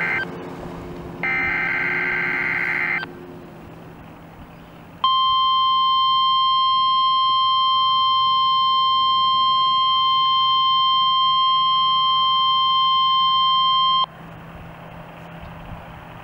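NOAA weather radio sounding a tornado-drill alert. A screeching burst of its digital alert header ends right at the start and another follows about a second in. About five seconds in, a steady high warning tone starts, holds for about nine seconds and cuts off abruptly.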